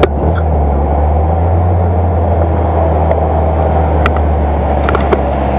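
Car engine running at a steady speed with road noise while driving, with a few light ticks.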